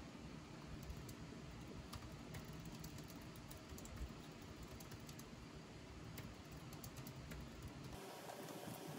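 Typing on a low-profile keyboard with round keys: quick, light key clicks in irregular runs. About eight seconds in the clicks stop and a different steady hiss takes over.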